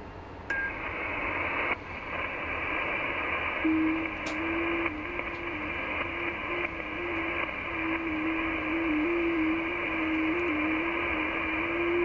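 Shortwave receiver audio from an Icom IC-7600 in USB on 10.143 MHz, the 30 m FT8 frequency. Band hiss is filled with the warbling tones of FT8 digital signals, which come in about half a second in. From about three and a half seconds in, a stronger low FT8 signal steps up and down in pitch, and there is a single sharp click a little after four seconds in.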